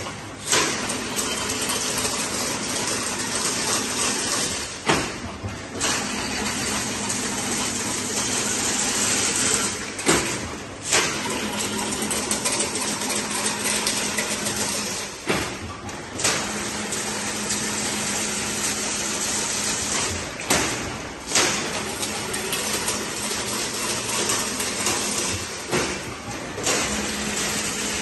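Automatic chain-link fence weaving machine running: a continuous mechanical rush and rattle of wire being fed and spiralled over a steady hum. About every five seconds it is broken by a brief lull and a sharp knock as one weaving cycle ends and the next begins.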